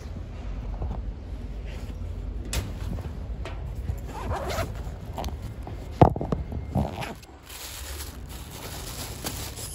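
Handling noise: a phone rubbing and knocking against clothing as it is carried, a run of rustles and scrapes with a sharp knock about six seconds in, over a low rumble.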